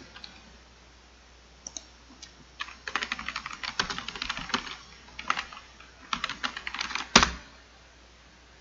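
Typing on a computer keyboard: a short message is keyed in irregular runs of clicks over about five seconds, ending with one louder keystroke as it is sent.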